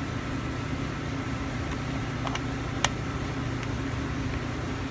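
Steady low mechanical hum with a faint hiss, broken by a few light clicks, the sharpest one nearly three seconds in.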